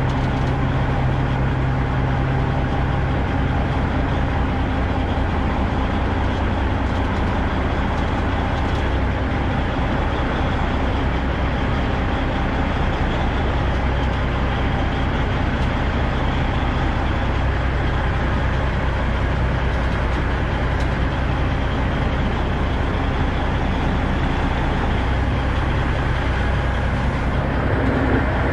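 Semi-truck diesel engine running steadily at low revs as the tractor slowly reverses a flatbed trailer.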